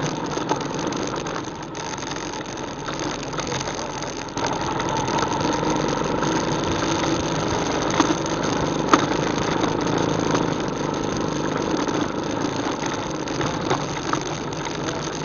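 ATV engine running steadily, getting a little louder about four seconds in. Two sharp knocks come near the middle.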